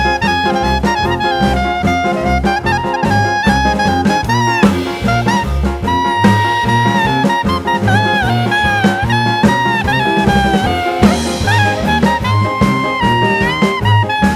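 Background music: upbeat jazz with brass and saxophone melody over a steady bass and drum beat.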